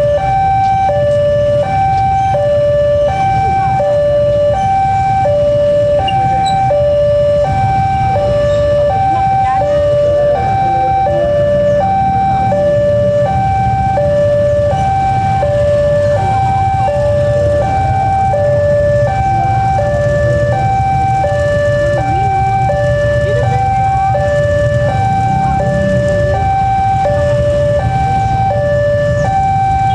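Electronic railway level-crossing warning alarm sounding a steady high-low two-tone pattern, about one pair a second, with the engines of waiting motorbikes running underneath.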